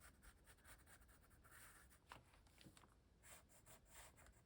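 Faint scratching of a Stabilo All pencil drawing on paper, in short strokes with a few small ticks.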